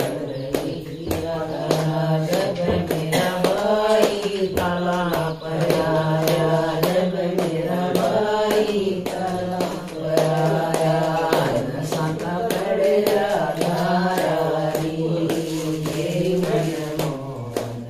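Group of women singing a Haryanvi bhajan (Hindu devotional song) together in unison, with a steady beat of hand-clapping under the singing.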